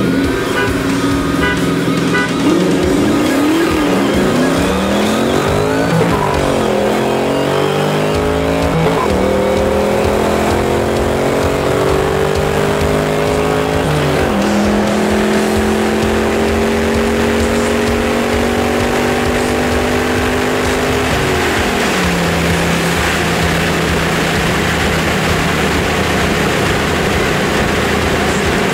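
Ford Mustang Mach 1's V8 accelerating hard through the gears, heard from inside the car. The engine note climbs and then drops at each of four upshifts, and after the last shift it runs steadily at cruising speed.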